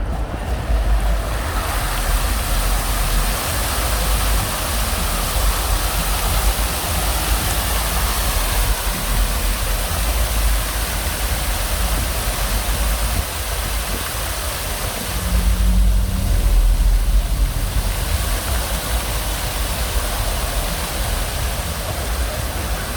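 Water fountain jets splashing steadily, with a low rumble underneath.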